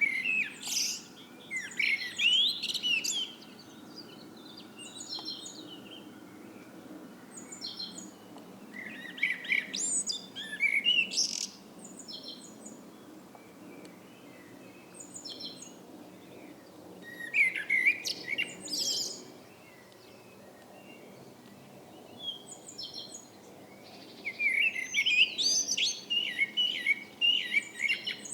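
Common blackbird singing: four song phrases, each a run of whistled notes and twitters, several seconds apart, with a few short high notes in the pauses.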